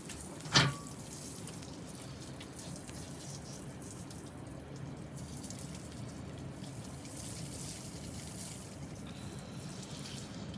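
Water running and splashing steadily against a door during a flood test for water ingress, with one sharp knock about half a second in.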